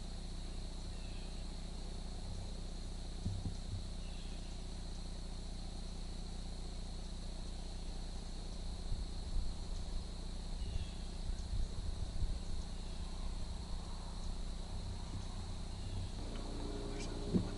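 Steady high-pitched insect chorus, an unbroken trill, with scattered soft low bumps, most between about nine and thirteen seconds in, and a short knock near the end.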